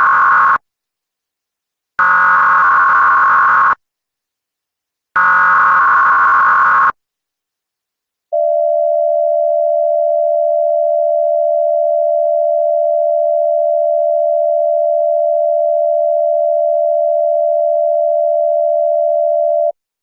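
Emergency Alert System SAME header tones: the end of one burst of digital data noise, then two more identical bursts about a second and a half apart. After a short pause comes the long, steady EAS attention tone, lasting about eleven seconds. The whole alert is pitched lower than the standard tones.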